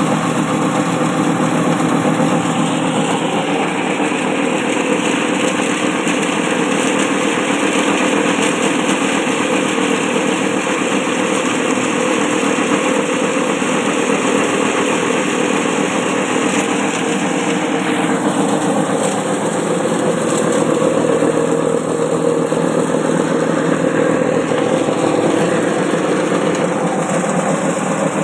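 Homemade wooden chopper mill, driven by a water-pump electric motor, running steadily while grinding dry tobacco: a continuous loud mechanical hum and whir.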